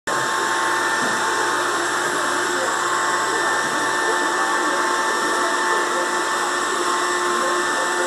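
Robot vacuum cleaner running: a steady motor whir with a constant high whine.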